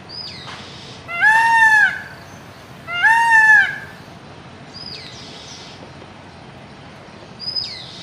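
Indian peafowl (peacock) giving two loud, drawn-out calls a little under two seconds apart, each rising then falling in pitch.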